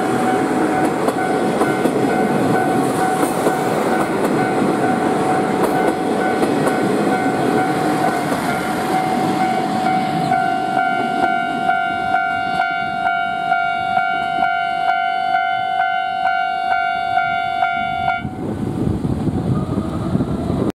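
Level crossing alarm ringing with a steady, pulsing tone of about two strikes a second while a passenger railcar runs past with a rumble of wheels on the rails. The alarm cuts off about eighteen seconds in.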